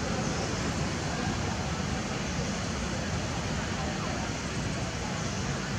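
Steady outdoor background rumble and hiss, with no distinct calls or knocks standing out.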